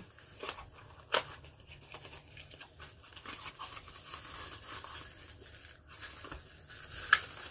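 Plastic packaging crinkling and tearing as a small boxed folding pot mat is opened by hand, with a sharp snap about a second in and another near the end.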